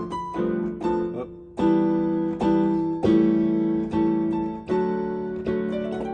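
Piano keyboard playing chords with melody notes on top, a new chord struck about once a second and left to ring between strikes.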